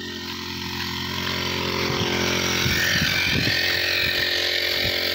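Small engine-driven power sprayer pump running steadily while pesticide is sprayed from a long hose, with a hissing edge that grows louder over the first few seconds.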